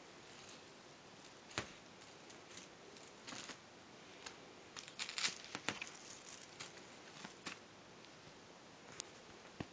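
Maine Coon kitten and cat scrabbling and pouncing on a cloth bedspread while batting at a teaser stick toy: soft, scattered scratching and rustling with a few sharp clicks, busiest about five seconds in.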